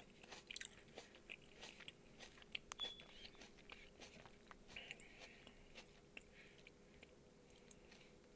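A person chewing with the mouth held right up to a phone's microphone: faint, irregular wet clicks and smacks, more frequent in the first few seconds.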